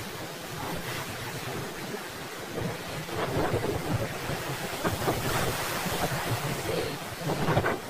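Hurricane winds buffeting the microphone over storm surf washing up the beach. The gusts strengthen from about three seconds in.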